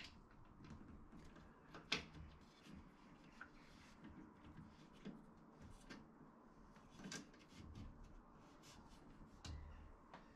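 Faint clicks and light knocks of hands fitting a bolt through a cot's wooden base frame and turning it with a small hex key, with one sharper click about two seconds in.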